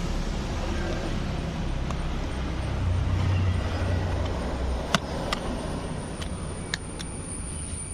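Steady low background rumble of traffic, with a few sharp clicks in the second half as the repaired seat switch is handled and fitted back into place.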